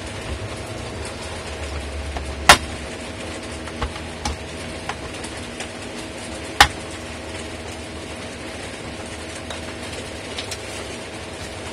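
Sharp plastic clicks and snaps as a spudger pries along the seam of a laptop's plastic case, the case clips popping loose: two loud snaps about four seconds apart, with a few smaller clicks between. Under them is the steady noise of a fan running at full speed.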